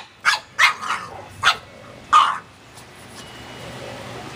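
A French bulldog barking: a run of about five short barks in the first two and a half seconds.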